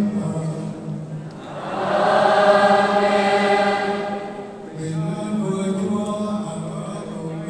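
Catholic liturgical chant: a man's voice sings on long, nearly level notes over a PA. A choir comes in louder for about three seconds in the middle.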